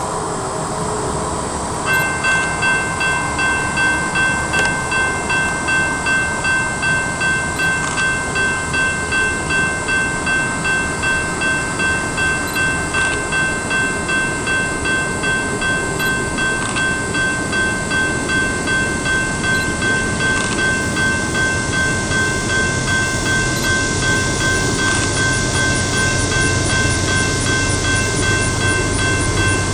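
General Signals Type 2 electronic crossing bell starting about two seconds in and ringing in a steady, even rhythm as the crossing signals activate. Near the end a low rumble builds underneath as the train approaches.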